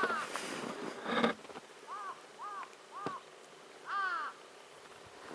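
Crows cawing: three short caws about half a second apart, then a louder caw near the end. A brief noisy rush comes about a second in.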